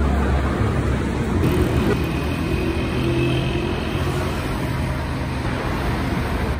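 Road traffic noise: a steady rumble of motor vehicles on a busy road, with an engine note standing out for a few seconds in the middle.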